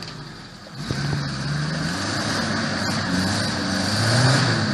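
Off-road 4x4's engine revving, its pitch rising and falling, louder from about a second in.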